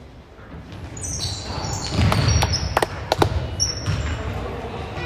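Sneakers squeaking on a hardwood gym floor and a basketball bouncing as players run the court, with a few sharp bounces about two to three seconds in.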